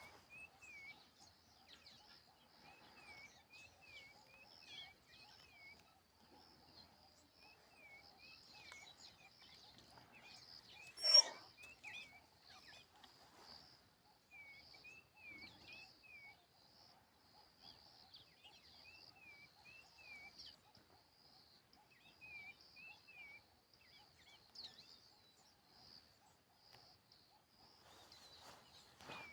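Birds calling in groups of short repeated chirps over a steady, faint outdoor background hum and hiss, with one brief loud call or squawk about eleven seconds in.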